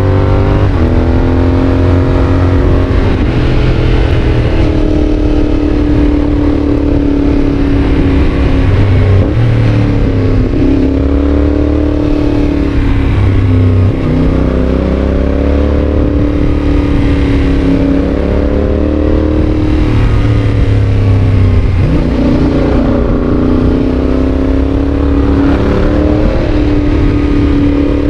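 Yamaha Tracer 7's 689 cc parallel-twin engine through an aftermarket GPR exhaust, ridden hard. The engine pitch climbs and falls over and over as the bike accelerates and backs off, dropping sharply several times.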